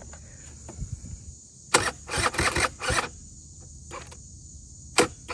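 A quick run of short mechanical clattering knocks and scrapes from handling a Honda Spree scooter, then a single sharp click about five seconds in. Crickets chirr steadily throughout.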